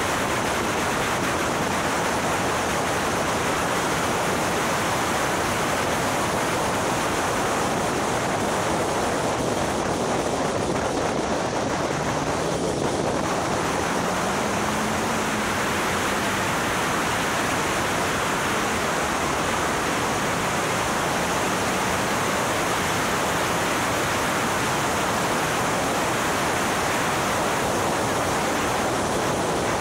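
Steady rush of wind noise on the microphone of a car at track speed, with the engine faintly heard underneath, its pitch rising and falling slightly around the middle.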